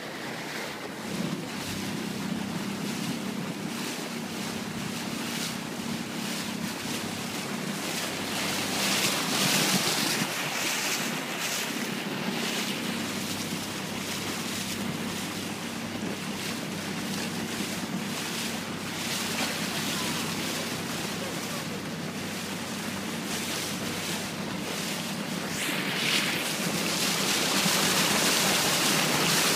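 Boat under way: a steady low engine hum under the rush of water along the hull and wind buffeting the microphone. The water and wind noise gets louder about 9 seconds in and again near the end.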